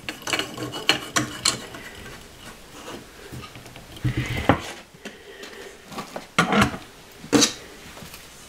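Clicks and scrapes of lamp parts being handled as a light bulb is screwed into its socket and the shade is fitted over the harp. A run of small clicks at the start, a scrape about four seconds in, and a few sharper knocks near the end.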